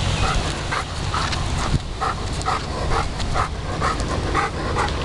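Bernese mountain dog panting in quick short breaths, about three to four a second, over a low wind rumble on the microphone.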